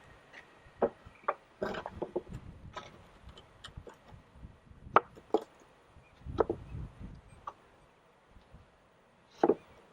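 Irregular knocks and clatter of plywood and wooden pieces being handled and set against each other, with a few sharper taps.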